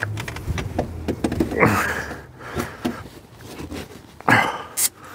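Knocks, clunks and scrapes of a van's alternator being worked by hand out of a cramped engine bay, metal and plastic bumping against brackets and pipes, with two louder rasping scrapes about a second and a half and four seconds in.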